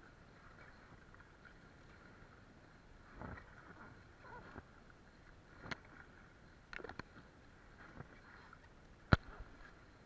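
Paddling an inflatable float with a bamboo pole: the pole dips and splashes in the sea a few times between several sharp knocks, with a close pair of knocks near the middle and the loudest knock about nine seconds in.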